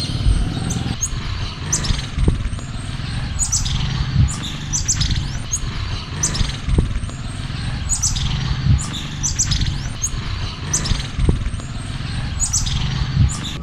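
Many short, high chirping calls that slide downward, scattered about once a second, over a steady low rumble.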